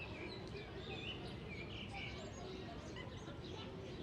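Park ambience: many birds chirping and trilling in quick, overlapping calls over a steady background murmur of many distant voices.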